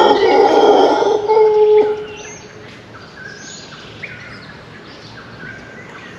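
Mantled howler monkeys howling in the trees, a deep rough chorus that breaks off about two seconds in. Birds chirp for the rest.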